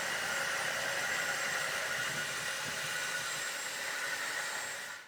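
A 1/14-scale hydraulic RC bulldozer model running with a steady mechanical whir and hiss that fades out near the end.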